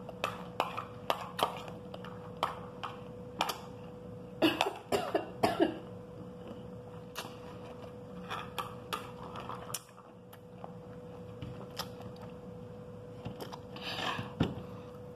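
Metal spoon clinking and scraping against a glass plate while scooping up pomegranate seeds, in many sharp clicks. There are louder short mouth or throat noises about four to six seconds in and again near the end.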